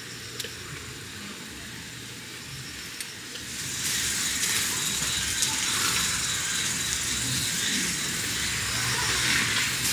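Food frying on a cast-iron pot-lid griddle, a steady sizzle that turns suddenly louder and hissier about three and a half seconds in.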